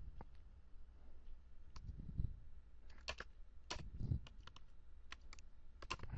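Typing on a computer keyboard: scattered single keystrokes and short quick runs of key clicks, fairly faint. A soft low thump comes about two seconds in and another about four seconds in.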